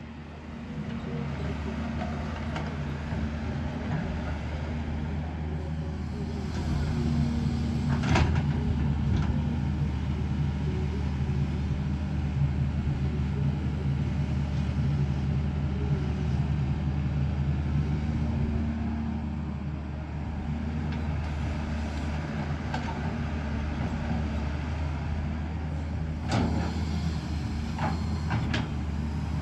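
JCB excavator's diesel engine running steadily, getting a little louder for several seconds in the middle. Sharp knocks come once about eight seconds in and a few times near the end.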